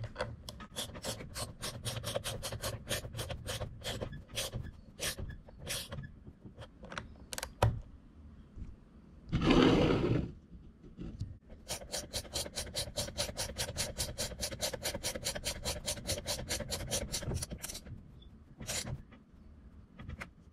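Small ratchet clicking in a steady rhythm as it tightens the top mount bolt of a shock, in two runs of about four to five clicks a second. A short, loud burst of handling noise falls between the two runs.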